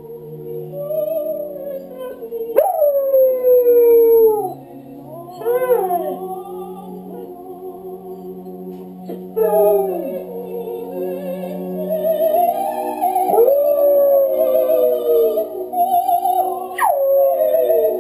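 Scottish terrier howling along to a recording of an operatic soprano. About five howls break in, each starting high and sliding down, over the singer's held, wavering notes.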